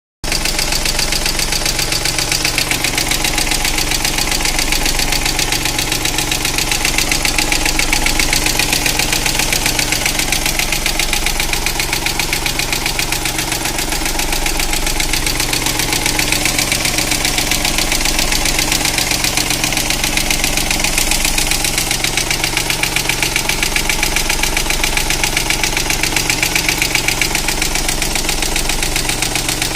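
Opel Corsa engine idling steadily with a fast, even ticking throughout, which the owner takes for noisy hydraulic valve lifters that a lifter additive has not cured.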